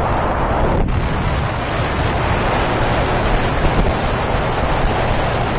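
Motorboat under way, its engine running steadily beneath a rush of wind and water, with a momentary dropout about a second in.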